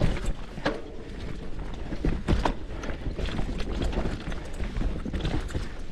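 Mountain bike clattering over wet rocks and roots: irregular knocks and rattles over a steady low rumble.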